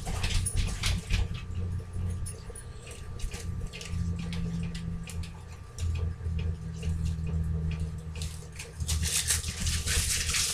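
Damp paper towels rustling and crinkling as they are peeled off a block of pressed tofu, in irregular crackles that grow denser near the end, over a low steady hum.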